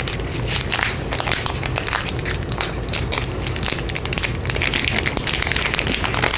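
Foil wrapper of a Pokémon trading card booster pack being torn open and crinkled by hand: continuous irregular crackling and crumpling.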